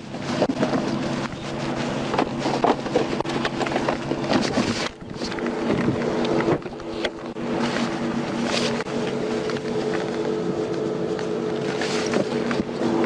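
A vehicle engine running steadily, under wind and rustling noise on the microphone.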